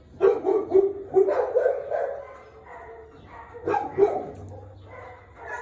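A dog vocalizing in a quick run of short, excited sounds for about two seconds, then a couple more near four seconds in, as she seeks attention while being petted.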